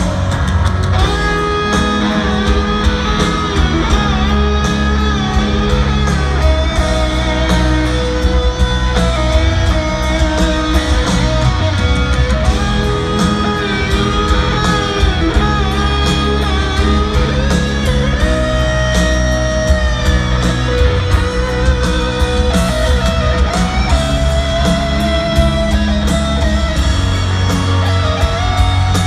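Live rock band playing at stadium volume, led by an electric guitar solo on a Les Paul-style guitar: a single lead line with bent and sliding notes over bass and drums.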